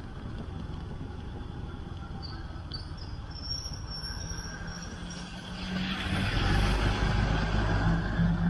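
Road vehicle engine running with a steady low rumble, which grows louder about six seconds in as a deeper engine hum comes up.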